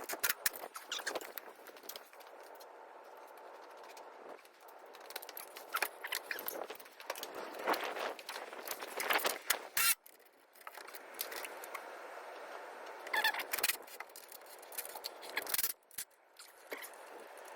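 Irregular scraping, clicking and knocking of hand work with tools and metal exhaust parts, with no engine running.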